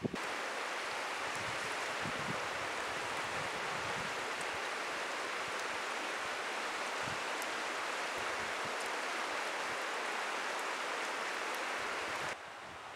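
Wood campfire burning in a metal fire pit: a steady rushing hiss of the flames with a few faint crackles, dropping away suddenly near the end.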